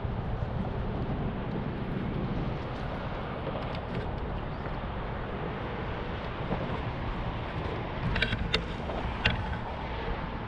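Steady wind rumble on the microphone and water slapping against a jon boat's hull, with a few sharp clicks and knocks near the end.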